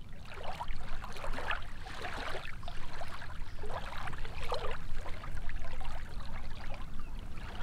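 Small waves on a lake lapping and splashing in an irregular rhythm, over a low steady rumble.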